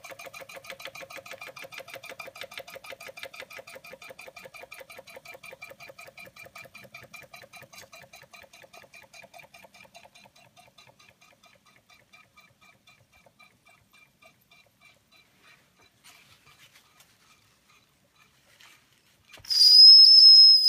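Victorian toy vertical steam engine with an oscillating cylinder running fast, its rapid, even chuffing slowing and fading as it runs down. Near the end, a sudden loud, high, steady whistle of steam released from the boiler top.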